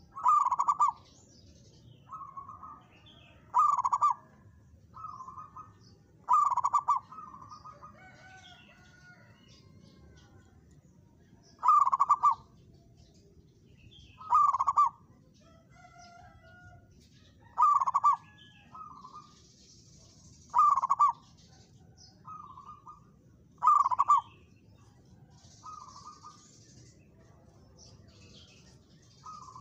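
Zebra dove (perkutut) cooing its staccato song over and over, a loud coo phrase about every three seconds with softer, shorter phrases between.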